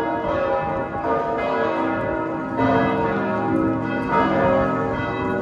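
Several church bells ringing together, their strikes overlapping and ringing on.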